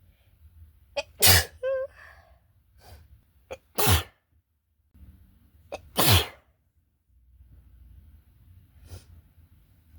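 A person with a cold sneezing three times, about two and a half seconds apart, each sneeze set off by a quick sharp intake. A short wavering voiced sound follows the first sneeze, and there is a faint breath near the end.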